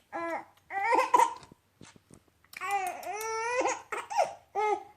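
Baby laughing and babbling in short high-pitched bursts, with one longer drawn-out laugh in the middle.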